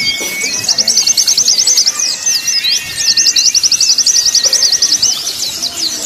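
White-eyes (pleci) singing: two long, very fast runs of high chirps, with thin steady whistled notes lower down.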